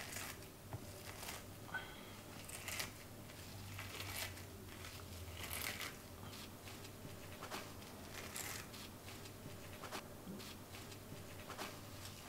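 Dover sole skin being peeled off the flesh with a kitchen towel: faint, irregular rustling, crinkling and tearing scrapes as the towel grips and pulls the skin.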